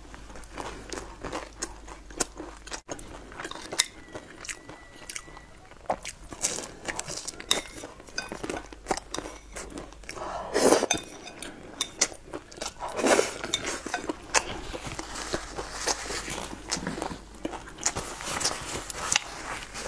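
Close-miked chewing and crunching of crisp fried food soaked in soup, with wet mouth sounds and many small crackles. There are a couple of louder bites about ten and thirteen seconds in.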